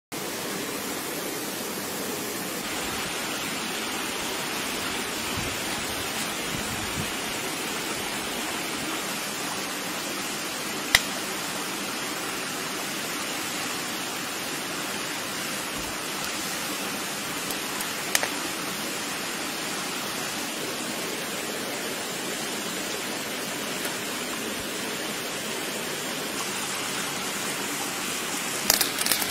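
Steady rushing of a stream. Two single sharp pops from the wood fire come in the middle, and a quick run of crackling snaps near the end.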